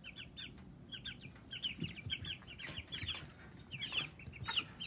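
Three-week-old Cornish Cross broiler chick peeping while it is held and weighed: a run of short, high cheeps, several a second, with a few soft clicks from handling.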